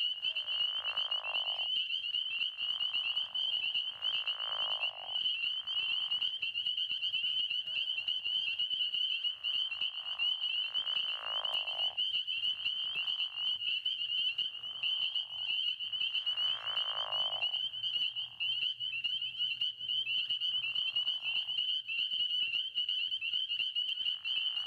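Night frog chorus: a steady high-pitched trilling from many frogs, with louder, lower calls of about a second each repeating every two to three seconds.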